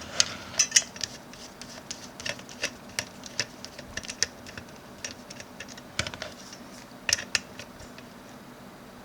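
Small hard parts being handled while a PC is assembled: an irregular series of sharp clicks and taps, loudest in the first second and again about seven seconds in, thinning out near the end.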